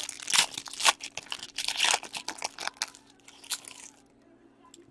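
Foil hockey card pack being torn open and crinkled by hand: a run of crackling tears and crinkles that stops about four seconds in.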